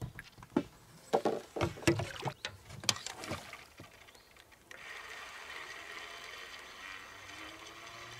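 Gear knocking and clattering against an inflatable boat for about four seconds, a quick run of sharp knocks, then a steady hiss from about five seconds in.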